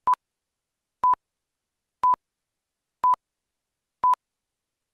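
The BBC Greenwich Time Signal, the 'pips': five short beeps of the same pitch, evenly spaced one second apart. They count down the last seconds to the hour.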